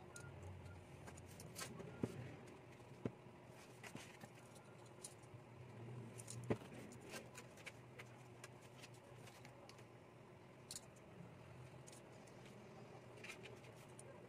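Faint, scattered clicks and taps from a plastic ruler and paper being handled on a drawing board, over a low steady hum.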